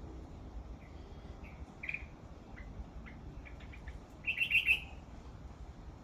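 Bulbul singing: a few short separate notes, then its loudest phrase, lasting under a second, about four seconds in.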